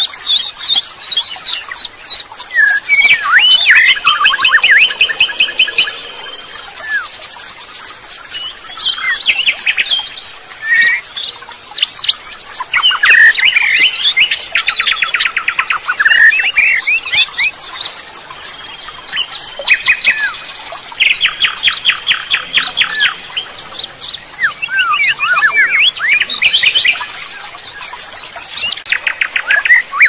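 Many songbirds singing and chirping at once, densely overlapping: rapid trills of quickly repeated notes and short sliding whistled calls, keeping up without a break.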